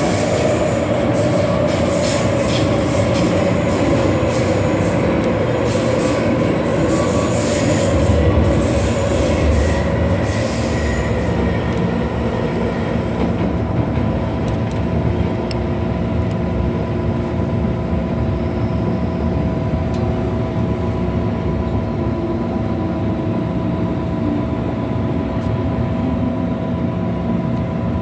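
MTR M-Train electric multiple unit running through a tunnel, heard from inside the carriage: steady wheel and motor noise with clicks over the rails and a whine falling slowly in pitch over the first ten seconds or so, then two steady tones as the train slows into a station.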